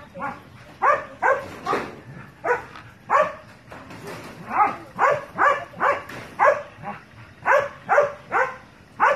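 A dog barking over and over, short barks at roughly two a second.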